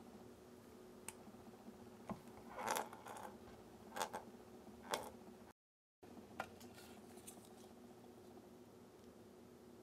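Plastic syringe-style chocolate dispenser handled in a plastic cup of melted chocolate: a few short plastic scrapes and clicks, the loudest a little before and after the middle, over a faint steady hum. The sound drops out completely for a moment about halfway through, then one more click.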